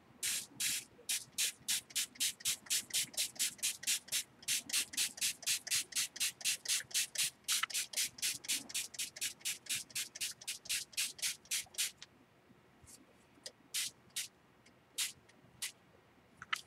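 Hand-pumped spray bottle misting water in rapid squirts, about four a second for some twelve seconds, then a few single squirts near the end. The water is wetting Color Bursts pigment powder so that the colour blooms.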